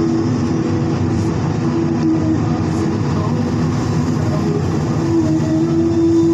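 Excavator's diesel engine and hydraulics running steadily, heard from inside the cab, with a steady whine that comes and goes as the hydraulics work.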